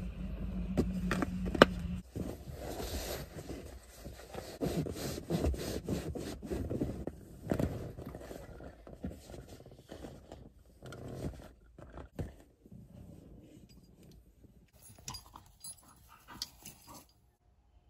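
Dickies universal-fit seat covers being pulled and strapped onto car seats: rustling and scraping of the covers with clicks of the straps and buckles, and a sharp click about a second and a half in. Near the end, quieter jingling and movement as a small dog runs about on grass.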